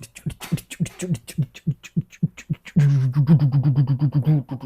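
A man's voice making quick, rhythmic beatbox-style sounds. A run of sharp clicks and short syllables comes first, then about three seconds in a louder pitched voice pulsing rapidly.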